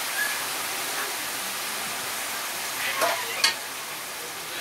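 Water poured from an aluminium kettle onto rice frying in a large pot, hissing and sizzling steadily as it hits the hot pan. A couple of sharp metal clinks from the ladle against the pot come about three seconds in.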